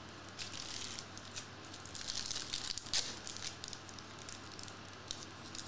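Foil trading-card pack wrapper crinkling in bursts as it is torn open by hand, loudest about three seconds in.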